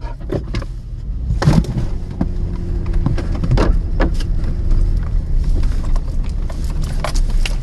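Jeep engine running as it creeps along a dirt road, a steady low rumble heard from inside the cab, with scattered clicks and knocks over it.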